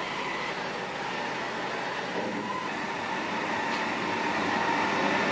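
Ship's deck crane running as it hoists a heavy engine, a steady mechanical noise with a faint high whine.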